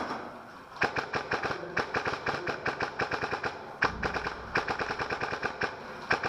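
Airsoft rifle firing full-auto in several rapid bursts, a fast clatter of shots starting about a second in, with a brief pause partway through.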